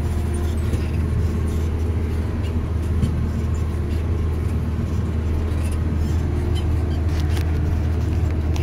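JCB digger's diesel engine running steadily while the machine is driven, a low, even drone heard from inside the cab.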